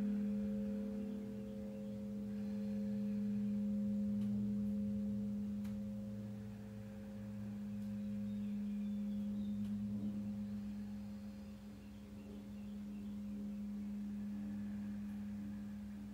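Crystal Tones alchemy crystal singing bowl ringing on one steady low tone, with fainter higher overtones; the sound swells and fades in slow waves every few seconds.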